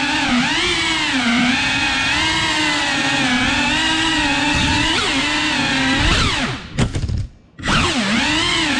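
Cinewhoop FPV drone's brushless motors and ducted propellers whining, the pitch rising and falling continually with the throttle. About two-thirds through, the whine cuts out almost to silence for under a second as the throttle is chopped, then spools back up.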